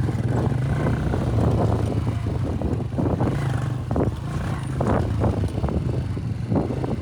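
Vehicle engine running steadily as the vehicle drives along, with frequent knocks and rattles over it.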